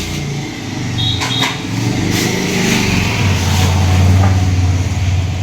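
A motor running with a steady low hum that grows louder about three seconds in.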